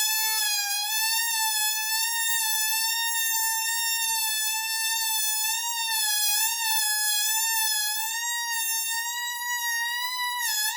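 Air squealing out of a balloon through its stretched neck: one long, steady whine that wavers slightly in pitch and rises a little near the end.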